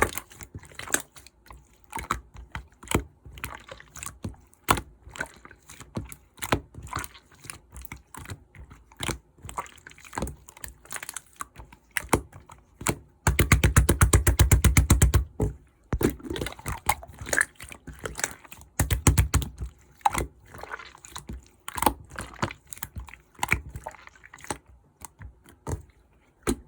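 Clear slime being squished, stretched and pressed by hand, making sticky clicks and air-bubble pops, with a fast run of rapid clicking about halfway through and a shorter one a few seconds later.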